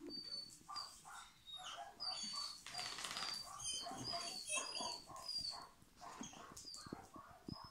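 A dog making short whines and yips, with brief high chirping squeaks repeated every half second or so.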